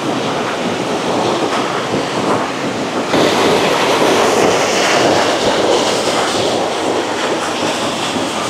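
Rushing water of a small mountain stream cascading over boulders, a steady rush that turns louder and hissier about three seconds in.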